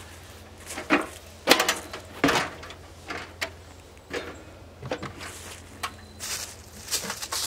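Camping gear being lifted out of a car trunk: a run of knocks, clunks and rustles as a case and bags are handled, the loudest in the first couple of seconds. Near the end come lighter crunches, like steps on dry leaves.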